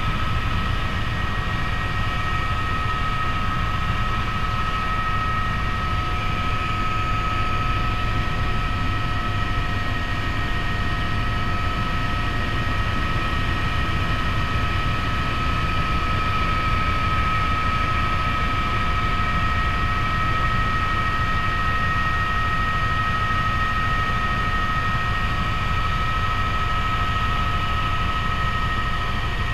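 Helicopter in flight heard from inside the cabin: a steady low rotor and engine rumble with a constant high whine over it.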